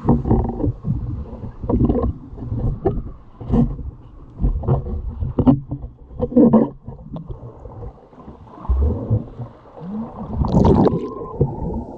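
Muffled underwater rumbling and sloshing of churning water, coming in irregular surges. A steady high tone comes in near the end.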